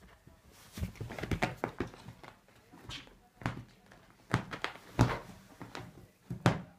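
A cat scrambling out from under a sofa cushion onto the upholstered seat: rustling fabric and a string of irregular soft thumps from its paws and body, the loudest about five seconds in.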